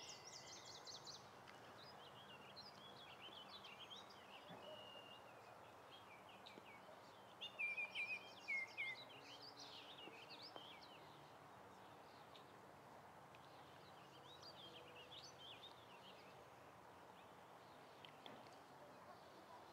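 Faint songbird chirps and song notes on and off, over a quiet outdoor background hiss, with a louder burst of song from about seven to nine seconds in.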